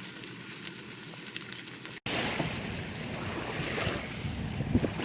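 A pan sizzles faintly for about two seconds. After a sudden break, ocean waves wash onto the shore with wind buffeting the microphone, louder and rushing.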